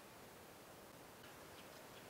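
Near silence: faint outdoor background hiss, with a few faint, short, high chirps or ticks from about a second in.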